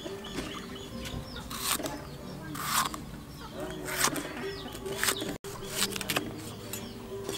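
Kitchen knife cutting through green bell pepper onto a wooden chopping board, a handful of sharp strokes roughly a second apart. Birds and chickens call in the background.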